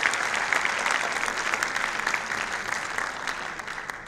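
Audience applauding, many hands clapping at once, the applause dying away toward the end.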